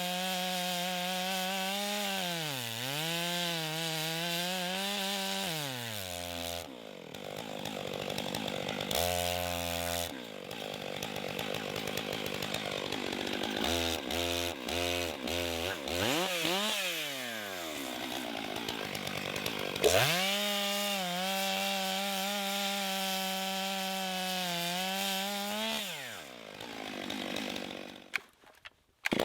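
Large Stihl chainsaw under heavy load, its bar buried full length in a big log. The engine note repeatedly sags as it bogs in the cut and picks back up. Near the end the sound fades out, then comes back abruptly.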